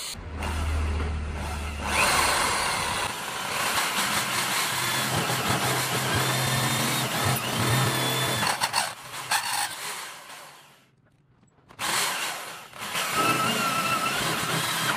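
Electric hand drill running under load, driving a lathe-mounted drilling attachment whose bit cuts into a steel flat bar held in the lathe chuck, with a wavering high whine over the noise. It comes as several short clips joined together, broken by a brief near-silent gap about eleven seconds in.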